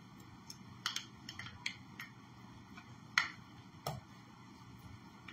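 Clinks and taps of a utensil against a glass and the ice cream maker's bowl as soft ice cream is scooped and scraped off into the glass: about half a dozen sharp clinks, the loudest about three seconds in.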